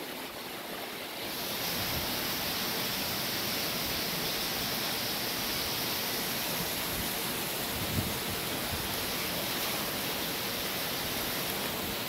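Steady rushing hiss of water running through an aquarium system's plumbing and overflow. It grows louder and brighter about a second and a half in.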